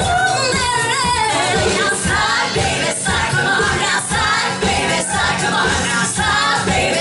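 Live pop medley: several voices singing together over a steady beat.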